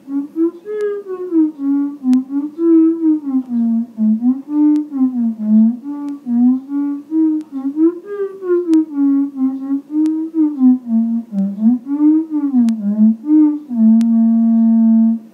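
Theremin playing a low melody, its notes sliding into one another with vibrato, then settling on a long held low note near the end before it stops.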